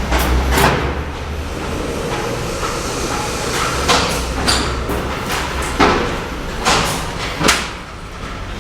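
Hand tools knocking on cement bricks during bricklaying: about seven sharp, irregular taps and knocks over a steady low rumble.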